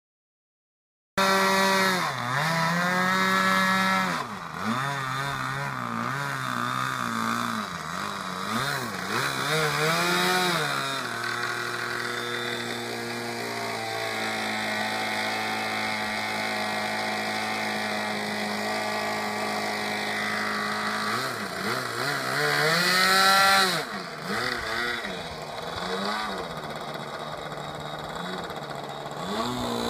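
Small glow engine of an Escapade RC model airplane running on the ground, its pitch swinging up and down over and over as the throttle is opened and closed. It holds a steady speed for several seconds in the middle, then revs high again before dropping back near the end.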